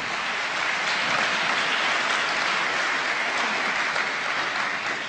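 Audience applauding, building to full strength about a second in and dying away near the end.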